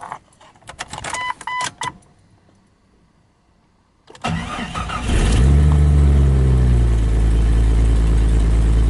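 Clicks and a few short electronic chime beeps, then a car engine cranks, catches about four seconds in and settles into a steady idle.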